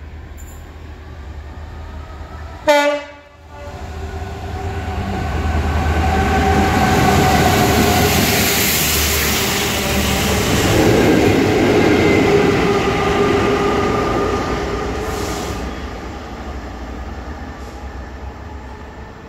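A diesel locomotive sounds one short, loud horn blast about three seconds in, then a rail head treatment train runs through at speed, its engine, wheels and water-jet spray swelling up as it passes and fading away.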